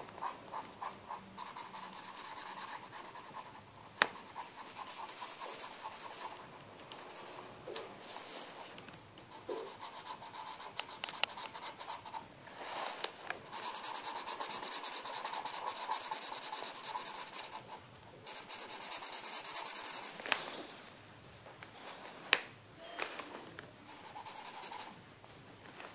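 Felt-tip pen scratching back and forth across the paper of a colouring book as an area is coloured in, in stretches of a few seconds broken by short pauses. A few sharp clicks stand out, one about four seconds in and another about eleven seconds in.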